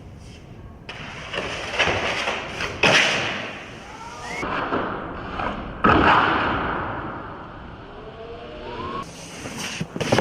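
Snowboard scraping and sliding over snow, with two heavy landing thuds about three seconds apart.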